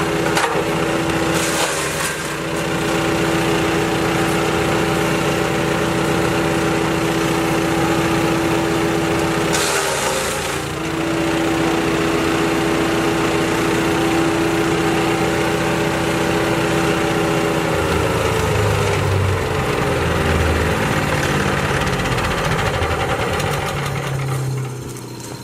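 Rock Machinery RX-13 wood chipper's Briggs & Stratton XR2100 420cc 13.5 hp petrol engine running at full speed, briefly pulling down twice with a burst of chipping as wood is fed in. Over the last several seconds the engine winds down, its pitch falling steadily.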